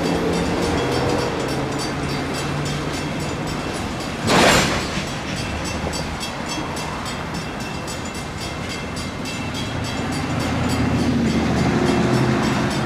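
Mechanical railroad crossing bell ringing steadily at about four strokes a second while a freight train of tank cars rolls through the crossing with a low rumble. A brief loud hiss comes about four seconds in, and the rumble swells near the end.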